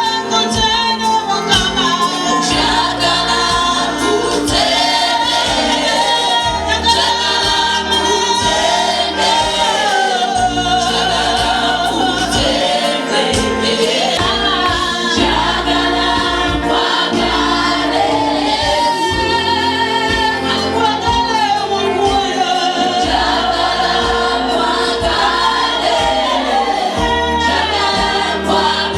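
Gospel music: a choir of voices singing over a steady bass and beat.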